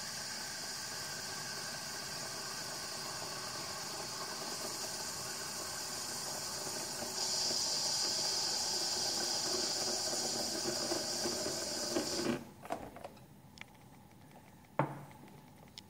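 De'Longhi EC145 espresso maker's steam wand hissing steadily. It gets louder about halfway through, then shuts off abruptly about three-quarters of the way in. A few light clicks and a single knock follow.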